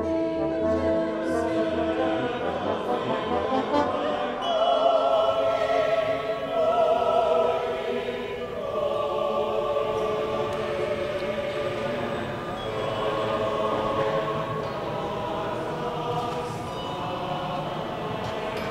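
Choir singing with instrumental accompaniment, held notes wavering in vibrato; the fullest, loudest stretch comes about five seconds in.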